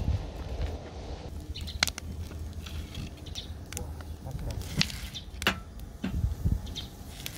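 Footsteps on a brick path, then a wood fire burning in a metal drum stove, crackling with sharp irregular pops. A couple of duller knocks near the end.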